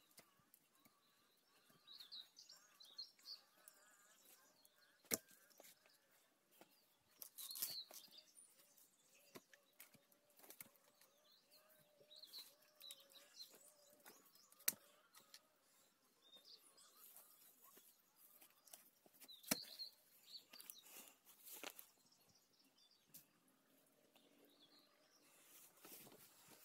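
Quiet outdoor ambience: faint birds chirping now and then, with a few sharp, isolated clicks or knocks scattered through.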